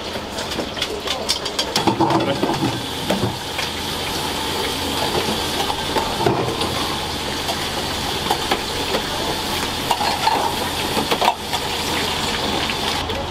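Soba-shop kitchen at work: a steady frying hiss with frequent clinks and clatter of bowls and utensils, busiest in the first couple of seconds and again near the end.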